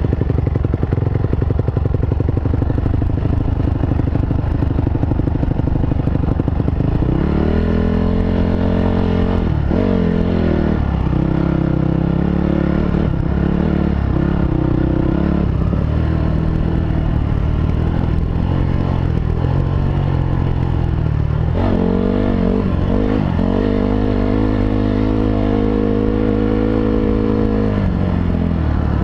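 2005 Honda CRF250R's single-cylinder four-stroke engine running while the dirt bike is ridden along a trail. The engine note rises and falls with the throttle, holding steady for a few seconds about a third of the way in and again for several seconds near the end.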